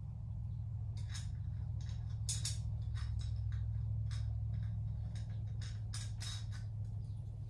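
Short, irregular scrapes and clicks from a small tool or part being worked by hand, about a dozen strokes in bursts, over a steady low hum.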